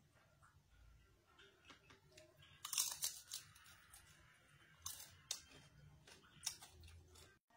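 Crispy fried chicken skin being bitten and chewed: a cluster of loud crunches about three seconds in, then several shorter crunches as it is chewed.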